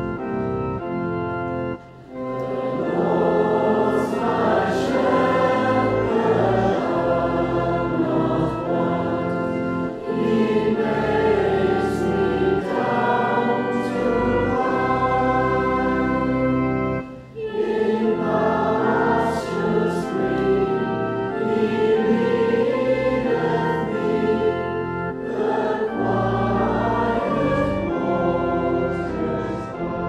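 Organ playing held chords, joined about two seconds in by a choir singing in the manner of a church hymn; the singing breaks off briefly about seventeen seconds in and then resumes over the organ.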